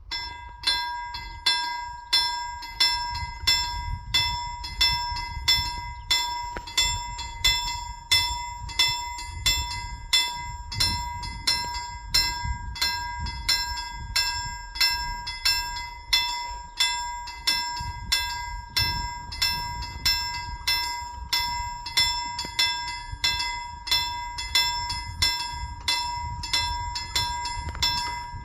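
Railroad level-crossing warning bell ringing with evenly spaced, rapid strikes over a steady ringing tone, starting abruptly; it warns that a train is approaching and the barriers are coming down.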